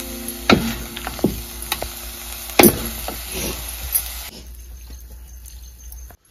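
Metal spatula scraping and knocking carrot halwa out of a hot metal pan into a glass bowl: a few sharp scrapes and taps, the loudest about two and a half seconds in, over a soft sizzle from the pan. It goes quieter after about four seconds.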